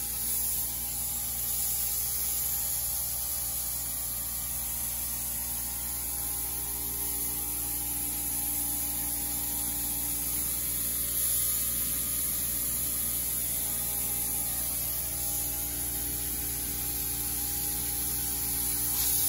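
Compressed-air paint spray gun hissing steadily as paint is sprayed, over a steady hum.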